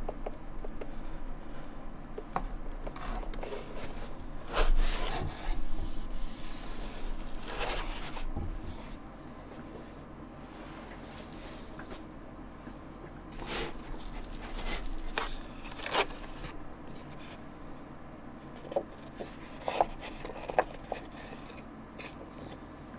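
Unboxing handling: the pen display tablet rubbing and sliding against its cardboard box and foam packaging as it is lifted out, with rustles and a longer hissing slide in the first eight seconds. It then goes quieter, with a few light clicks and knocks of packaging being handled.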